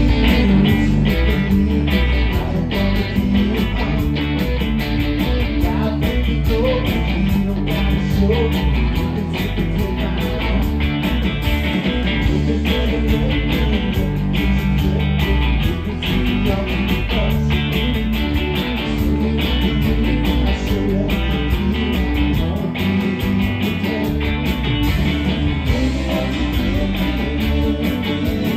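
Live rock band playing a steady rock-and-roll groove: electric guitars, a Les Paul-style and a Stratocaster-style, over a drum kit, loud and continuous.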